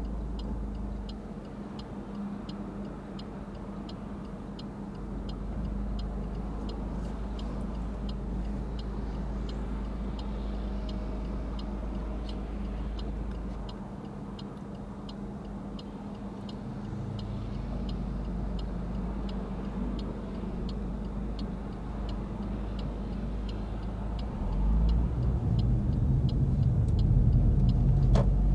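Car's turn-signal indicator ticking steadily over the low run of its engine, heard inside the cabin. From about 25 seconds in the engine grows louder as the car pulls away through the turn.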